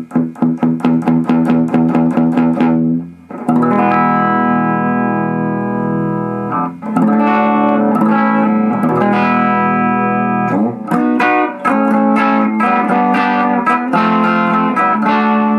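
Electric guitar played through a home-built Fender 5F1 Champ single-ended 6V6 valve amplifier on a clean tone. Rapid repeated picked notes for about three seconds, then ringing chords.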